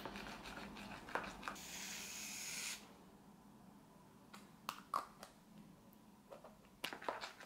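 Shaving foam sprayed from an aerosol can in one steady hiss of a little over a second, followed by scattered light clicks and taps.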